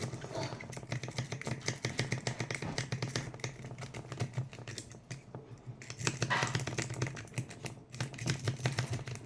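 A rake pick scrubbing rapidly in and out of a wafer-type bike lock's keyway: a dense, irregular run of light metallic clicks as the wafers chatter against the pick. A low steady hum runs beneath it.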